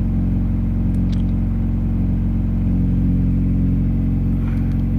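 1996 Honda Prelude's non-VTEC H23 2.3-litre four-cylinder idling steadily after a cold start, held at a high cold idle of about 1500 rpm.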